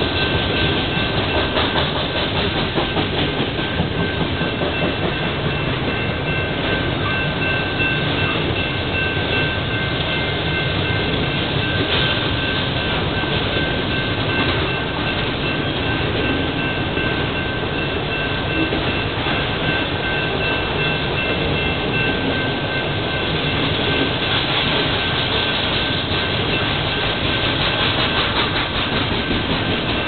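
Autorack freight cars rolling past: a steady rumble and clatter of steel wheels on the rails. A few thin high-pitched tones run steadily over it.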